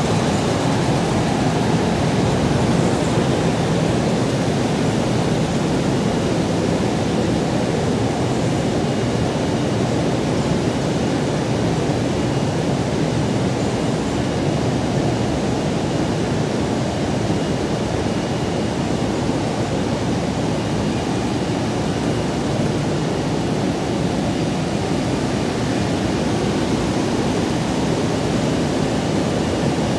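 Steady, even rushing noise of factory machinery and air handling around a tortilla production line, with no distinct beat, knocks or clear tones.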